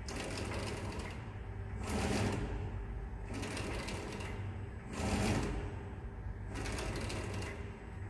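Electric extrusion blow-moulding machine cycling through a dry test run. Its mould carriage and blow-pin heads shift with about five short hissing rushes roughly every second and a half, over a steady low hum.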